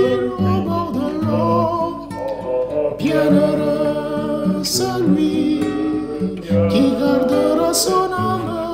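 Two men singing a French song together, with a classical guitar playing plucked accompaniment.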